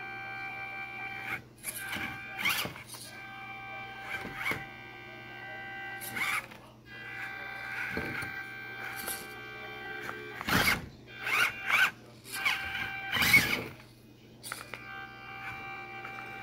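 Electric drive motor of a 1/24-scale RC Elements Enduro 24 crawler truck whining steadily as it climbs, cutting out briefly a few times. Sudden scraping and knocking bursts from the tyres and chassis on the coasters break in, loudest about ten and thirteen seconds in.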